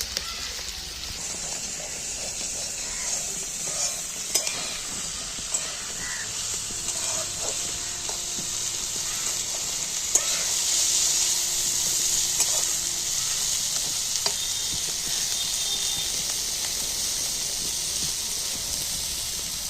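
Food frying in hot oil, sizzling steadily, with a few sharp clicks along the way.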